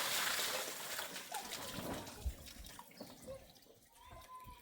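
Water dripping and trickling, with scattered small clicks; a steady hiss fades out in the first second.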